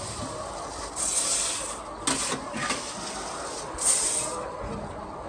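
Several short bursts of rustling and scraping, about a second in, twice around two to three seconds, and once near four seconds, over a steady background hiss.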